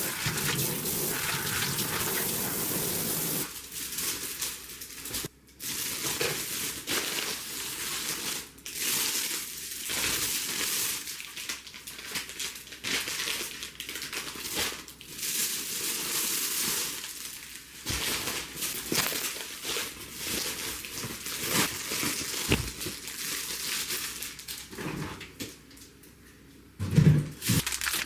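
Water runs steadily for the first few seconds, then stops. After that comes irregular crinkling and rustling with scattered clicks, and a louder clatter near the end.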